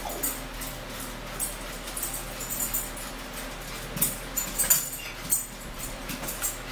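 Forks clicking and scraping on plates, with close-up chewing and mouth sounds, in a string of short sharp clicks.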